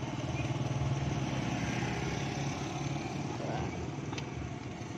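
A vehicle's engine running steadily, heard from on board while riding, with a single sharp click about four seconds in.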